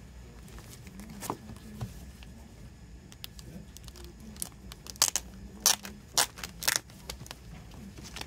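Plastic wrapping on a CD package crinkling and crackling as it is handled, with a run of louder, sharp crackles about five to seven seconds in.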